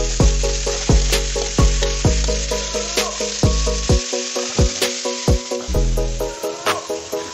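Frog meat frying in hot oil in a pan, sizzling steadily, under background music with a steady beat.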